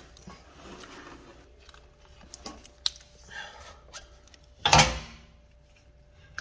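Metal parts being handled during front-suspension work: scattered light knocks and scrapes, with one loud, short clatter about five seconds in.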